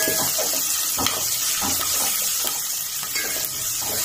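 Green chillies and whole spices sizzling in hot oil in a metal pot, a steady hiss, while a wooden spatula stirs them with irregular scraping strokes.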